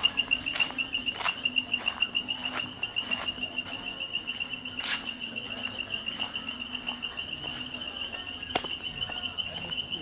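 An insect chirping in a steady, rapid pulsed trill at one high pitch, with footsteps on a stone path about every two-thirds of a second.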